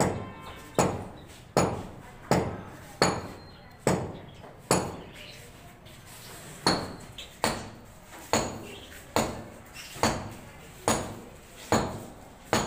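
Repeated sharp knocks at an even pace, about one every 0.8 seconds, each with a short ringing tail, stopping for about two seconds midway before carrying on.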